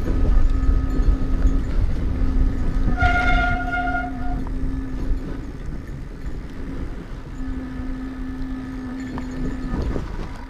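Fat bike being ridden on a trail: a rumble of wind and fat knobby tires with a steady low hum through most of it. A short high-pitched squeal comes about three seconds in and lasts about a second and a half.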